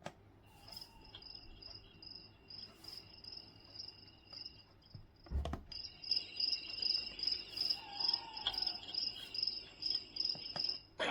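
Recorded cricket chirping played through the sunrise alarm clock's built-in speaker as one of its soothing nature sounds, a steady pulsing high chirp. A click about five seconds in, after which the chirping is louder.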